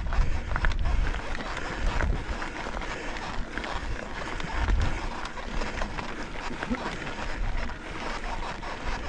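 Wind buffeting a mountain biker's camera microphone in low rumbling gusts while riding, over a steady rush of tyre and trail noise with scattered small clicks and rattles from the bike.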